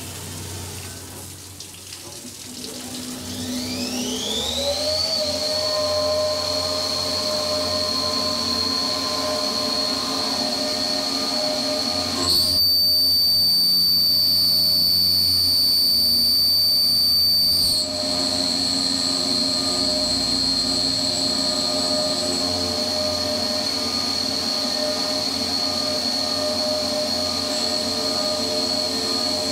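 CNC mill spindle spinning up with a rising whine over the first few seconds, then running steadily under a hiss of flood coolant while an end mill cuts a keyway in a steel shaft. In the middle stretch the whine grows louder and higher for about five seconds, then settles back to a steady run.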